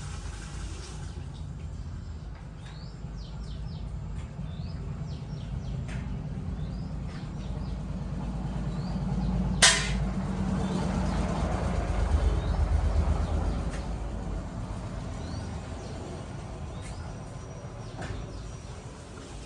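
Small birds chirping over a steady low rumble that swells and fades in the middle, with one sharp click about ten seconds in.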